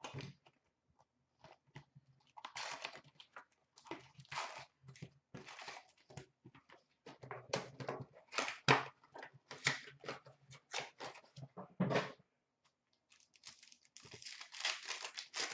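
Cardboard box of 2016-17 O-Pee-Chee Platinum hockey cards being opened and its foil packs taken out and handled, rustling and crinkling in irregular bursts. Near the end a foil pack wrapper is torn open.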